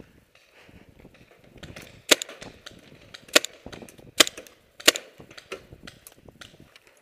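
Tippmann TiPX paintball pistol firing four sharp single shots, starting about two seconds in and spaced roughly a second apart, with fainter pops and clicks between them.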